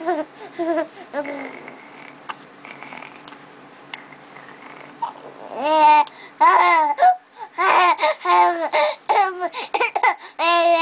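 Baby babbling: a few soft sounds at first, then about halfway through a run of loud, high-pitched drawn-out vocal sounds that rise and fall.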